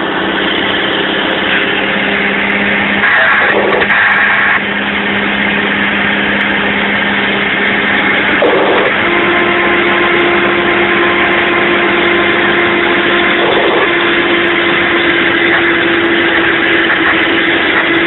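Mack dump truck's diesel engine running under load, heard from inside the cab. The engine note changes a few seconds in and settles on a higher steady tone about halfway through.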